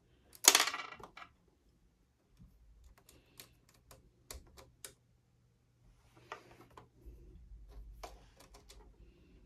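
Small clicks and light scrapes of fingers working a serger's plastic lamp holder while a small screw is started back in by hand. A short scrape about half a second in is the loudest sound, followed by scattered faint clicks.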